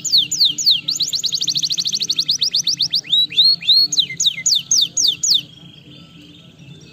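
Canary singing: a few slow falling whistled notes, then a fast trill of rapid falling notes, then slower rising and falling notes. The song stops about three-quarters of the way through, leaving only faint chirps.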